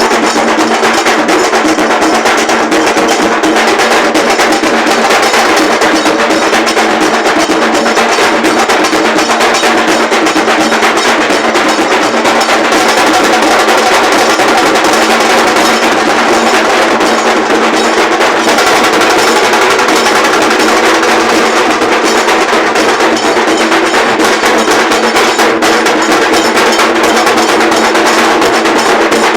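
A band of large dhol drums playing a fast, dense, loud rhythm without a break.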